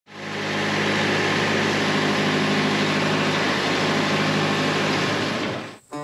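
Wood-Mizer portable band sawmill running steadily, a low engine hum under a broad hiss, cutting off suddenly just before the end.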